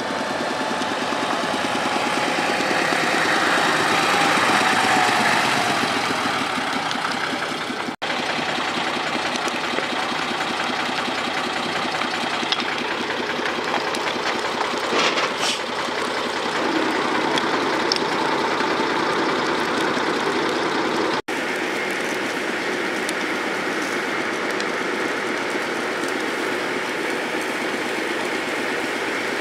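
Old fire truck's engine running as it drives past, with a tone that falls slowly over the first few seconds. After a cut an engine keeps running steadily, and in the last part a steady hiss of water spraying from a hose nozzle joins it.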